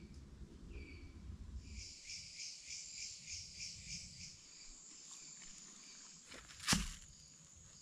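Insects calling: a chirping call pulsing about three times a second for a couple of seconds, then a steady high trill. One sharp knock near the end is the loudest sound.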